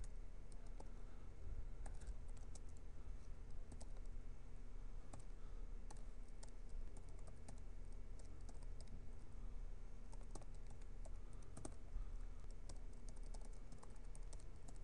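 Computer keyboard being typed on: irregular runs of quick key clicks, fairly faint, over a steady low hum.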